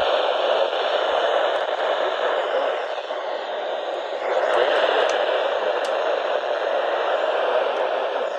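Radio receiver static: a steady hiss from a weak or noisy signal, dropping slightly about three seconds in and coming back up about a second later.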